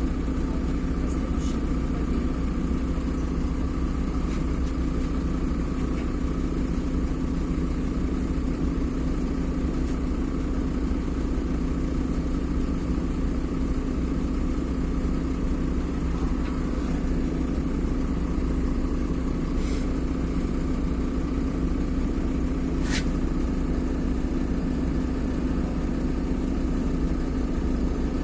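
LiAZ-5292.21 city bus running steadily, its engine and drivetrain heard as an even low hum from inside the cabin, with a couple of faint clicks.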